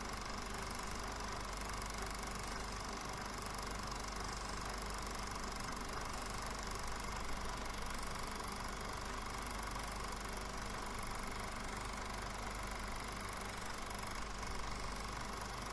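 Film projector running steadily, a continuous mechanical whir with a few steady tones, added as the sound track to a silent film.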